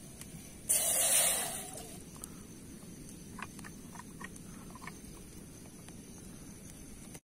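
Water poured from a canteen into a steel cooking pot: a splashing rush about a second in that fades over the next second, over a steady low background. A few short chirps follow a couple of seconds later.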